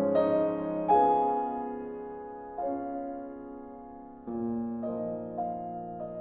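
Slow, gentle piano music: soft chords and single notes struck every second or two, each ringing on and fading.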